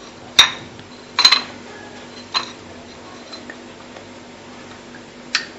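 Kitchen dishes and utensils clinking: a handful of short, sharp clinks, two of them close together about a second in and another pair near the end.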